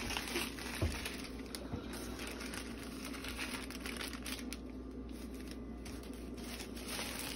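Thin plastic bag crinkling and rustling as it is handled, with small irregular clicks, over a steady low hum.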